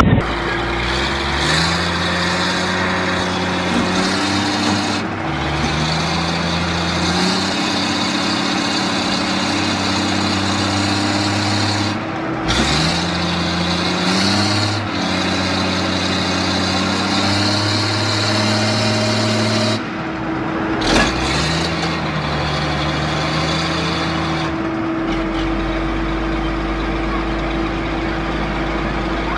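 Diesel engines of heavy equipment running under load, their pitch holding steady and then stepping or sliding up and down every few seconds as the throttle changes. A short knock sounds about three-quarters of the way through.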